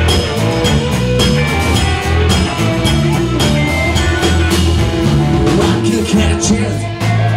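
Live rock band playing: electric guitar, electric bass and drum kit, with a steady drum beat.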